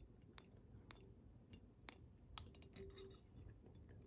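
Faint, irregular light clicks and ticks of a metal whip finisher and tying thread being worked around the head of a fly on a hook in a vise.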